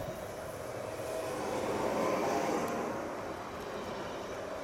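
Pesa Elf 27WEb electric multiple unit moving slowly along the platform: a steady whine from its electric drive over the running noise of the wheels on the rails. The sound swells about two seconds in and then eases slightly.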